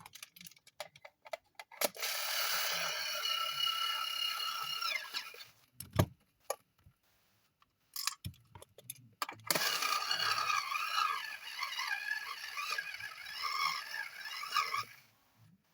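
Plastic clicks and knocks as a nebulizer case is put back together, then a small electric screwdriver running in two long spells driving the case screws, its whine wavering and dropping in pitch as a screw seats. A sharp knock falls between the two spells.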